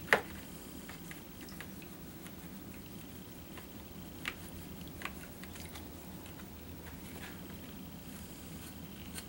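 A printed circuit board being moved by hand in a shallow plastic tray of developer solution: one sharp tap just after the start, then a few faint taps and small wet sounds over a steady low hum.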